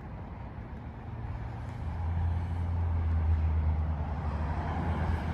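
A 2017 Toyota Tacoma TRD Off-Road on the move: a steady low engine and road drone that gets louder about two seconds in and then holds.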